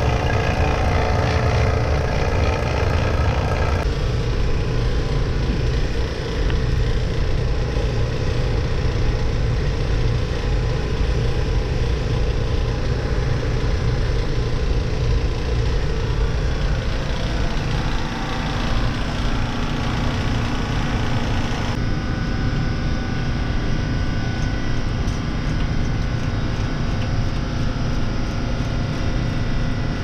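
Steady, loud drone of running shipboard machinery. Its character changes abruptly twice, about four seconds in and again a little past twenty seconds.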